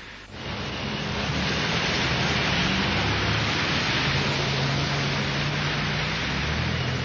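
Rain and city traffic: a steady hiss of rain and tyres on a wet street, with the low hum of car engines underneath. It comes in abruptly and builds over the first second.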